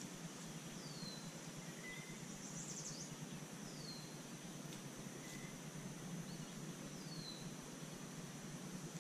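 Summer outdoor ambience: a songbird repeats a short down-slurred whistle about every three seconds, each followed by a faint lower note, over a steady high insect drone and a low steady background hum.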